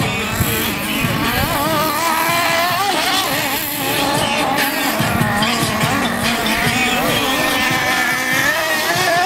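Small combustion engines of radio-controlled model cars racing, a high buzzing whine that rises and falls as they rev through the course.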